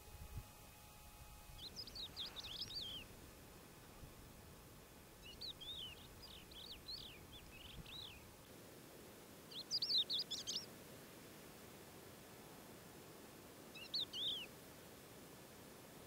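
A songbird singing four short phrases of quick, high chirping notes, a few seconds apart; the third phrase is the loudest.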